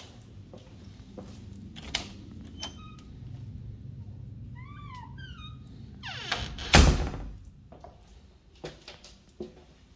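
Footsteps clicking on a laminate floor, a low steady hum and a few short squeaks, then the loud thud of the laundry closet door swinging shut just before seven seconds in.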